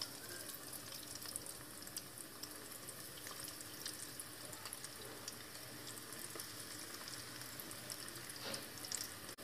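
Breadcrumb-coated chicken bread rolls deep-frying in hot oil, a faint steady sizzle with many small crackles.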